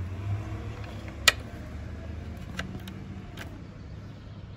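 Handling sounds from fitting an antenna adapter plug into the back of a car-stereo head unit. One sharp click about a second in is the loudest, with a few fainter clicks around it, over a steady low hum.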